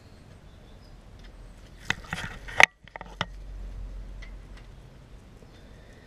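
A few metallic clicks and scrapes of a spanner working a Yamaha YBR's rear chain adjuster bolt a quarter turn to take up chain slack, loudest about two and a half seconds in, then a sudden short dropout and one more faint click.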